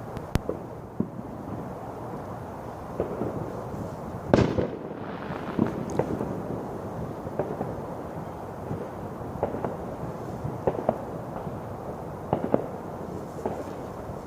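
Fireworks going off: a string of irregular sharp bangs and pops, the loudest about four seconds in.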